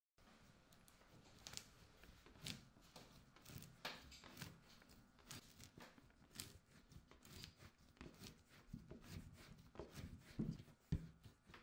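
Hands wedging a lump of clay on a work table: faint, irregular soft pats, pushes and rustles of the clay and skin against the surface, with a couple of heavier thuds near the end as the lump is pressed down.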